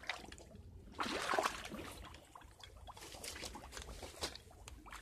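Wading and pushing through brush in a shallow creek: splashing and sloshing water mixed with rustling, snapping twigs, with a louder burst about a second in followed by scattered clicks and rustles.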